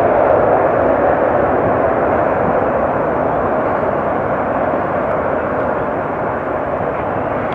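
Jet airliner engines passing close by: a loud, steady rushing noise that slowly fades.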